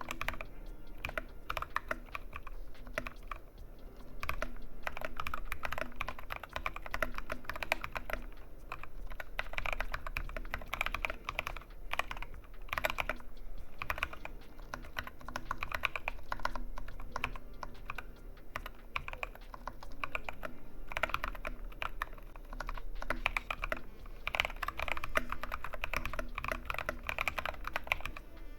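Fast, continuous typing on a Kemove Snowfox DK61 mechanical keyboard fitted with lubed Durock Koala tactile switches, the keystrokes coming in quick irregular runs with now and then a louder single stroke.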